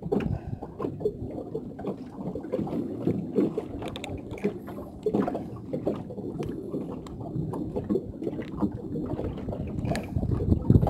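Water slapping and gurgling against the hull of a small boat, with scattered light knocks throughout.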